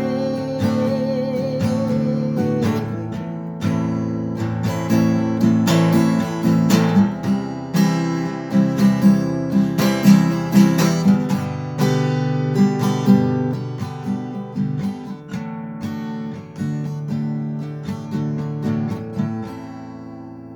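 Acoustic guitar in a dropped tuning, capoed at the first fret, strummed through the song's instrumental ending. The last sung note is held with a wavering pitch for about the first two seconds, and the final chord rings out and fades near the end.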